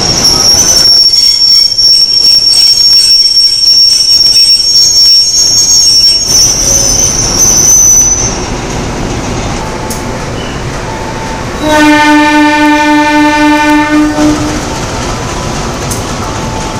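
A train's wheels squeal, a loud steady high note for about the first eight seconds, over the rumble of the moving train. Then the CC203 diesel-electric locomotive's horn sounds one long blast of about three seconds, starting past the middle.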